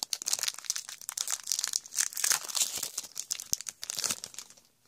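Foil wrapper of a Magic: The Gathering booster pack being torn open and crinkled as the cards are pulled out of it, a dense crackling that dies away shortly before the end.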